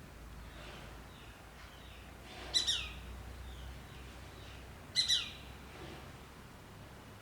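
A bird calling twice, about two and a half seconds apart, each call a quick pair of sharp notes sliding downward, with fainter chirps of other birds throughout.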